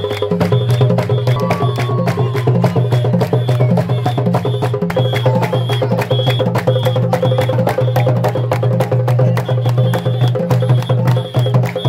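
Live drumming: a fast, steady rhythm of sharp drum strikes with a high ringing tone repeating in time over a low steady drone.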